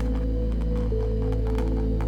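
Background ambient music with sustained low tones; one held note shifts pitch about a second in.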